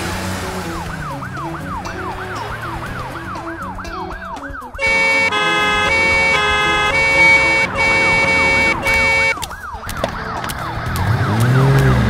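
Ambulance siren sound effect wailing in a fast rising-and-falling yelp, about three cycles a second. Louder music plays over it from about five to nine seconds in.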